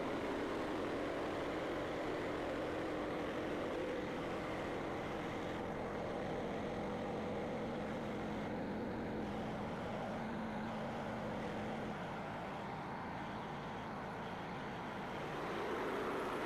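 Portable bandsaw mill running steadily, its engine and blade cutting through a beech log; the sound eases slightly about three-quarters through and rises again near the end.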